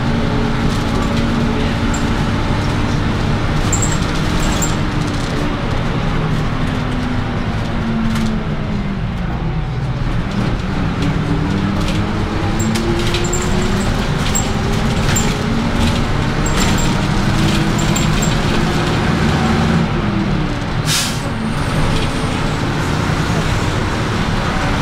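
Jelcz M11 city bus's diesel engine heard from inside the moving bus. Its note falls about eight seconds in, then climbs again over the next few seconds and holds steady. There is a short burst of noise about 21 seconds in.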